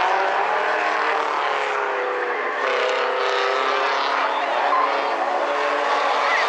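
Several small four-cylinder compact race cars running together on the track, their engines overlapping and rising and falling in pitch as they accelerate and lift.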